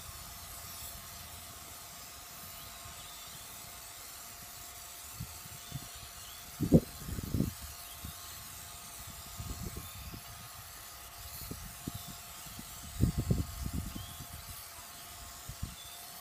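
Aerosol can of tyre shine hissing in a long, steady spray onto a wet alloy wheel and tyre. A few low thumps come through, the loudest about seven seconds and thirteen seconds in.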